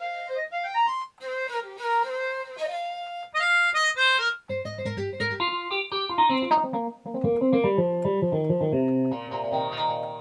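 Roland AX-Edge keytar playing quick single-note melodic runs on a plucked, guitar-like synth sound. A lower bass part joins about halfway, and a denser, fuller sound comes in near the end.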